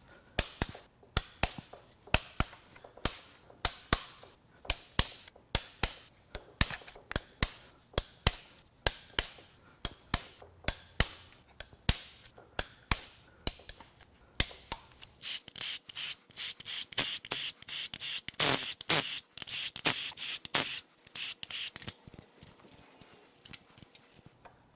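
Hand ratchet loosening engine bolts, giving sharp single clicks about two a second, then a faster, denser run of clicking and scraping from about fifteen seconds in until about twenty-two seconds.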